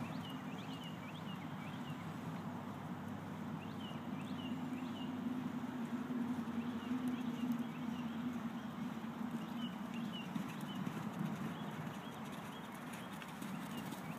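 A horse cantering on soft dirt arena footing: dull hoofbeats over a steady low rumble.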